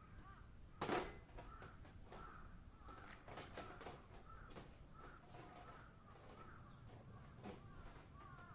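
Crows cawing repeatedly and faintly, with one sharp knock about a second in.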